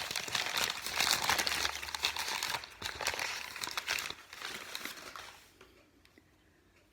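Packing wrapping crumpling and crinkling as a piece of china is unwrapped and handled; it dies away about five and a half seconds in.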